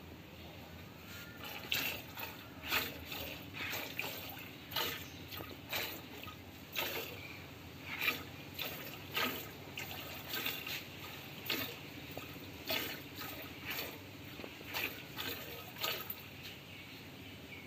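Milk squirting from a cow's teats into a plastic bucket by hand milking: a run of short, rhythmic squirts, about one to two a second, starting about a second and a half in.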